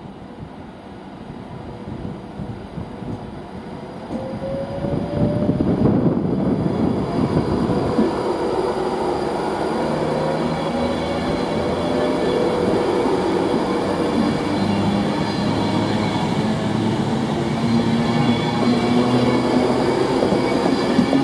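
A train passing at speed, swelling up loud about four seconds in and then a steady rush of wheels on rail, with a few tones that slowly rise in pitch.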